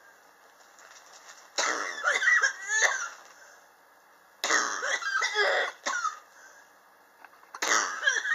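A person coughing in three loud fits of about a second and a half each, the last starting near the end. It is a chronic cough, which the person blames on sharp temperature changes in their apartment.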